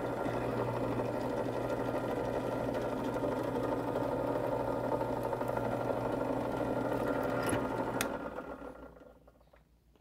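Bench drill press motor running steadily while a hole is drilled through G10 knife-handle material; about 8 seconds in it is switched off with a click and spins down.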